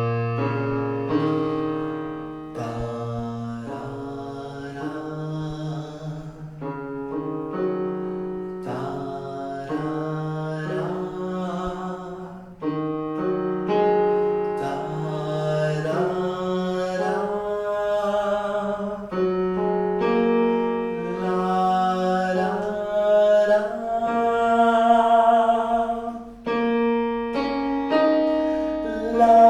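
A man sings a soft vocal exercise over electronic keyboard chords, each chord black keys played three at a time. The singing stays soft, with no push from the body, while the mouth opens a little wider note by note, so the vowel brightens as the exercise goes on.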